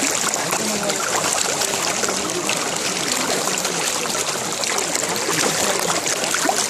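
A dense mass of catfish thrashing and jostling in shallow water, a steady churning of many small splashes and slaps.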